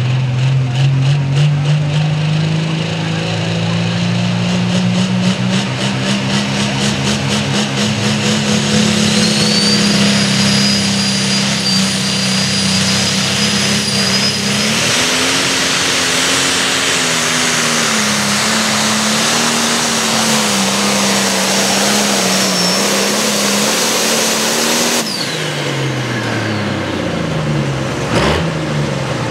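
Case IH limited pro stock pulling tractor's turbocharged diesel engine running at full throttle while hauling the sled. Its pitch climbs over the first few seconds, then holds and wavers under load, with a high whistle over it for a while. About 25 seconds in the throttle is cut at the end of the pull and the engine winds down.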